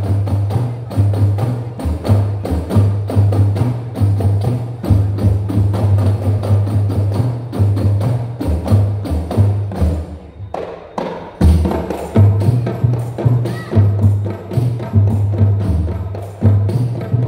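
Rebana ensemble of hand-struck frame drums playing a fast interlocking rhythm over a deep, steady low drum beat. A little past ten seconds in it nearly stops, then the whole group comes back in on a loud stroke.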